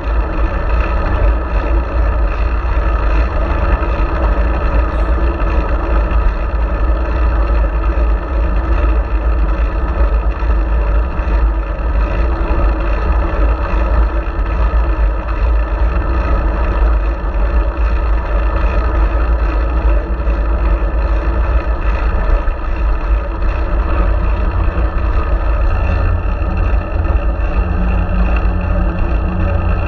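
Wind buffeting a bike-mounted GoPro Hero4's microphone while riding a fixed-gear bicycle, a loud, steady low rumble mixed with road noise. A low steady hum joins near the end.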